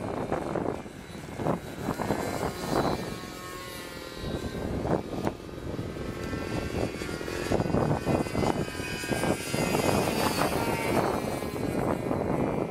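Radio-controlled model airplane in flight, its motor and propeller whine sliding up and down in pitch as it passes, with gusts of wind buffeting the microphone.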